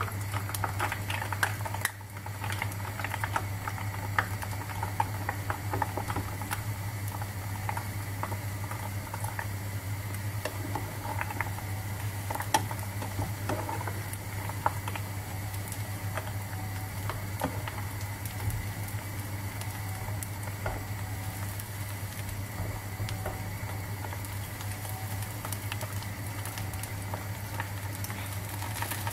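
Breaded mozzarella cubes deep-frying in a saucepan of hot oil: a steady sizzle and bubbling, full of small crackles and pops, over a low steady hum.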